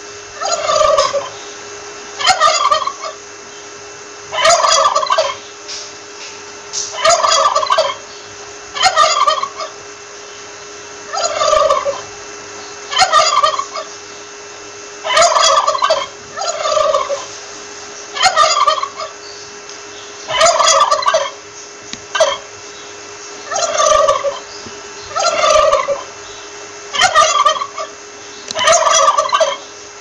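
Turkey gobbling over and over, one short falling gobble about every one and a half to two seconds.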